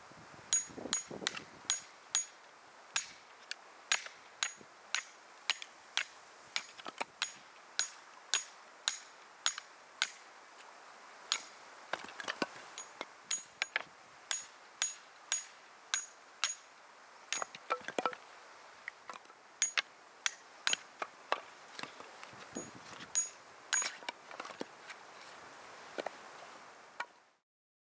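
A hammer striking metal over and over, about two blows a second in runs of several with short pauses between, each blow leaving a faint high ring. The blows stop suddenly shortly before the end.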